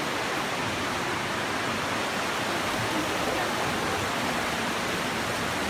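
River water rushing steadily over stones and rock ledges in a narrow limestone gorge.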